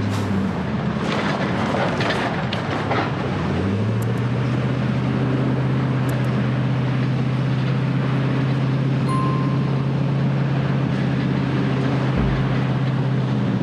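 Vehicle engine drone with tyre and road noise, heard from inside a moving vehicle on a back road. The engine note rises a little about three and a half seconds in and then holds steady, with a few sharp clicks in the first three seconds.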